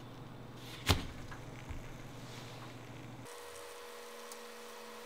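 A single sharp click about a second in as a finger flicks a fidget spinner with an oiled steel ball bearing into motion, then a faint rustle. About two-thirds of the way through, the sound gives way to a faint steady hum.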